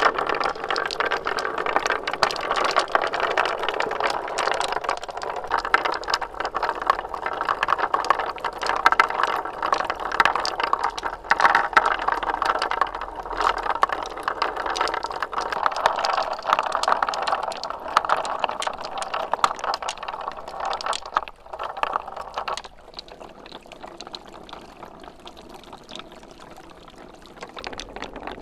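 Many marbles rolling and clattering along a marble run track in a dense, continuous rattle of small clicks. About 22 seconds in, the rattle drops to a quieter, sparser patter.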